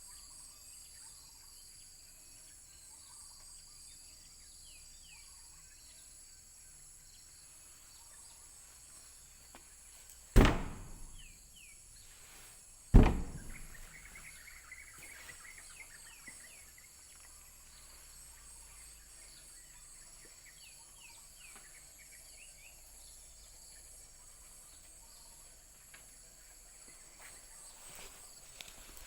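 Two loud sudden bangs about two and a half seconds apart, each dying away over about a second, over a steady high-pitched insect drone with a few faint chirps.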